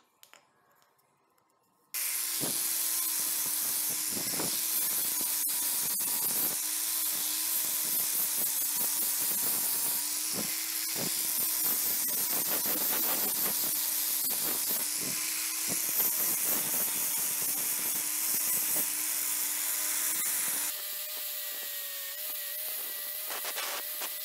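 Angle grinder with an abrasive disc grinding the edge of a steel knife blank held in a vise: a loud, steady hissing grind over the motor's steady whine, with occasional knocks. It starts abruptly about two seconds in. Around twenty seconds in it eases a little and the whine shifts pitch.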